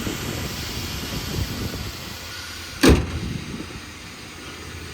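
A car panel slamming shut once, a single loud thump about three seconds in, over a steady low rumble.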